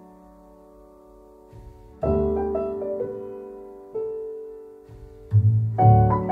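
Background piano music: slow chords struck and left to ring out, a new chord about two seconds in, another about four seconds in and more near the end.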